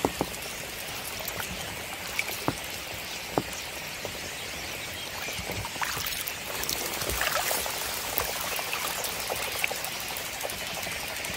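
Water splashing and dripping off a kayak paddle with each stroke, over a steady high chatter from a large bird flock that the paddler takes for a few thousand starlings in a tree.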